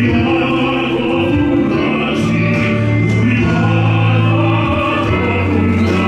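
Worship music with singing over long, held low notes, played continuously as accompaniment for a dance.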